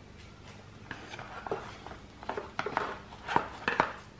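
Irregular light knocks and clicks of hard plastic tail bodywork and a metal ratchet being handled as the Yamaha Ténéré 700's unbolted tail section is worked loose and lifted out.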